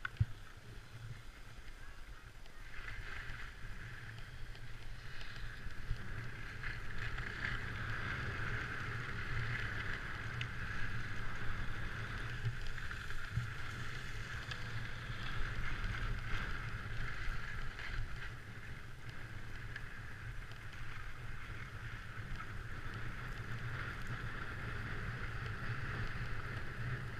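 Skis sliding over packed snow, a steady rushing hiss, with wind rumble on the camera's microphone; it grows louder over the first few seconds and then holds steady.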